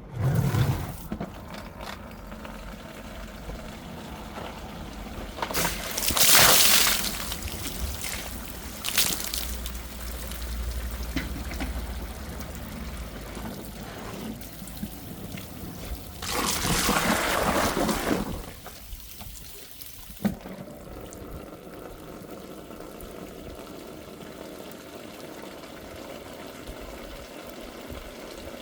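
Water pouring and trickling in a drain manhole, with several louder rushes of water, the loudest about six seconds in and again from about sixteen to eighteen seconds in, then a steadier, quieter flow.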